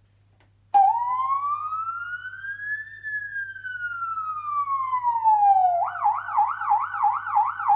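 Siren sound effect: one slow wail that rises and then falls, switching near the end to a fast warbling yelp of about three cycles a second.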